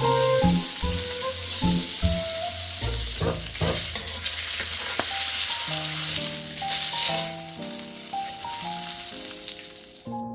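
Salmon fillet searing in melted butter in a hot pan: a steady, loud sizzle that cuts off suddenly near the end, with background music underneath.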